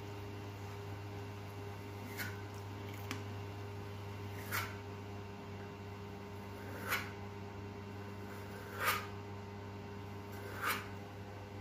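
Kitchen knife cutting a rolled sheet of dough into strips on a stone countertop: the blade clicks against the stone about six times, one to two seconds apart, over a steady low hum.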